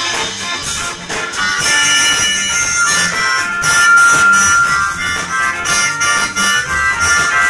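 Live blues-rock band with a harmonica solo played into the vocal mic, backed by drums, bass guitar and electric guitar; the harmonica holds one long note about two seconds in.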